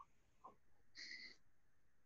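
Near silence: room tone, with one brief faint sound about a second in.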